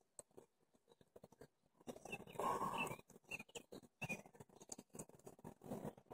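Faint scattered small clicks and rustling from hands working the firing switch and magnets of a Nemesis mechanical vape mod, with a louder stretch of rubbing about two seconds in.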